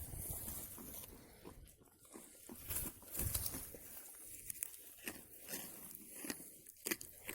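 Goats biting and chewing raw carrots: irregular crisp crunches and soft chewing.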